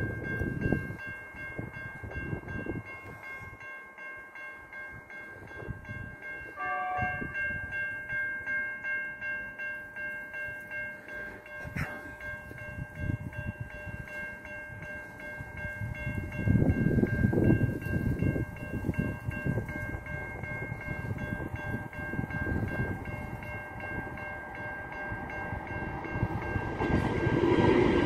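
Pacific National diesel freight train approaching, its low rumble growing and then getting much louder near the end as the locomotive arrives. Over it a steady high-pitched ringing from the level crossing's warning bells.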